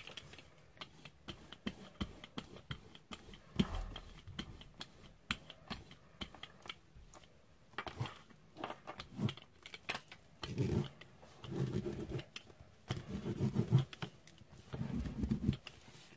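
Hand rubbing and pressing paper down onto a gel printing plate to pull a print: scattered light taps and paper rustles, then from about ten seconds in a run of short, louder rubbing strokes.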